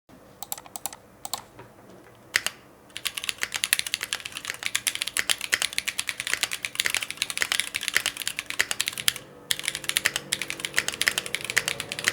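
Typing on a mechanical keyboard fitted with PBT Cherry-profile keycaps. A few separate keystrokes come first, then fast, continuous typing from about three seconds in. It breaks off briefly near the end, then picks up again.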